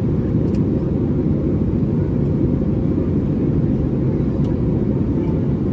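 Steady low rumble inside the cabin of an Airbus A320neo in flight on descent: airflow over the fuselage and its CFM LEAP-1A engines, heard from a window seat.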